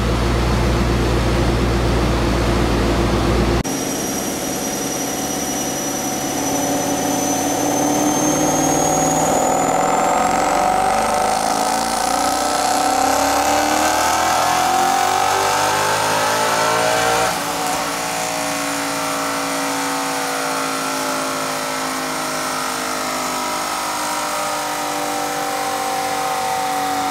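Twin-turbocharged 5.0 V8 of a 2015 Ford Mustang GT making a dyno pull on 12 psi of boost: after a loud low hum for the first few seconds, the engine note climbs steadily for about twelve seconds with a high whine rising along with it. About two-thirds in it cuts off sharply as the throttle is lifted, then runs on at a lower, even note.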